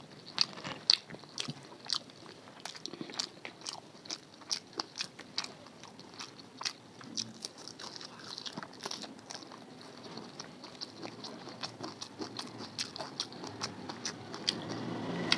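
Close-up eating sounds: a person biting and chewing food, a rapid irregular run of small crunchy, wet mouth clicks. A low rumble builds near the end.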